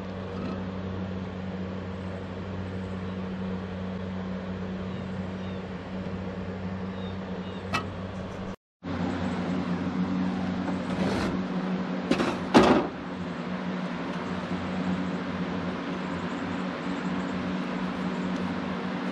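A steady low mechanical hum, broken by a brief drop-out near the middle. About two-thirds of the way through come a few sharp knocks and clatters, as a metal spirit level is handled and set down on top of the log legs.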